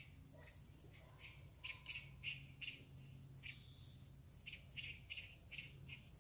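Squirrel chattering: two runs of short, high calls, about three a second, with one longer note between them, over a faint steady low hum.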